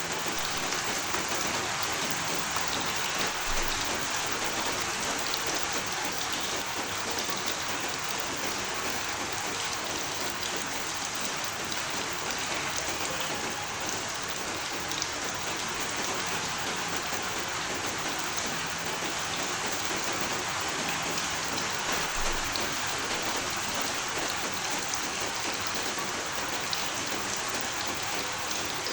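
Steady, heavy rain falling on a surface: an even, unbroken hiss of dense drops.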